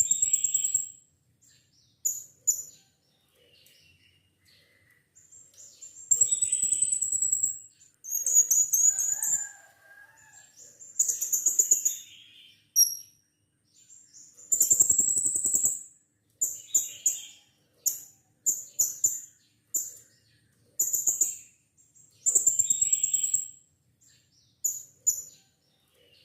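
Blue-crowned hanging parrot (serindit) calling: a string of shrill, very high-pitched trilled calls, several lasting a second or more, with short sharp chips in between.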